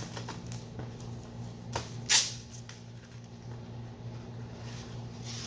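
Packaging of a new head gasket being opened by hand: small rustles and clicks, with one short, sharp rip about two seconds in, over a low steady hum.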